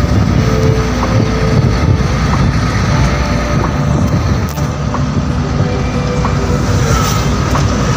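Truck running along a highway, its engine and tyre noise heard steadily from inside the cab, with a faint tick repeating a little faster than once a second.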